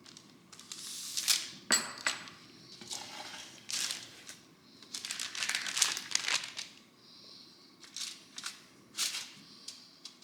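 Crinkling and rustling of handled wrapping in irregular short bursts during food prep, with one sharp light clink just under two seconds in.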